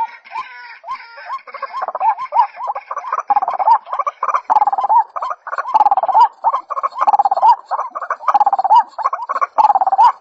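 White-breasted waterhen (ruak-ruak) calling: a fast run of short croaking notes, about two a second, each bending up and down in pitch, growing louder and more regular after about three seconds. For the first second and a half, higher harsher notes overlap the calls.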